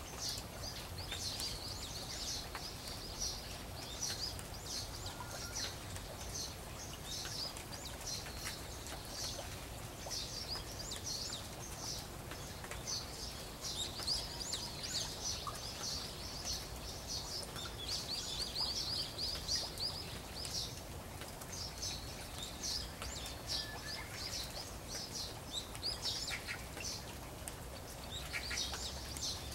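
Small birds chirping over and over in quick, high calls, over the steady sound of falling rain.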